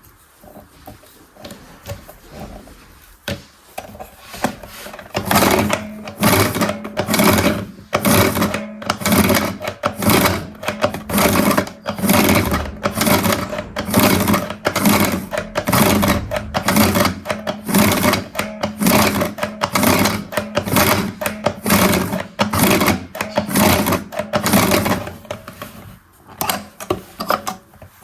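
Toy washing machine running, its plastic mechanism whirring and rattling in a rhythm of about two beats a second over a steady low hum. It starts about five seconds in and stops a few seconds before the end.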